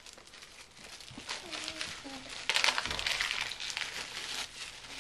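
Gift wrapping paper and plastic packaging crinkling as a present is handled and unwrapped, loudest from about halfway through.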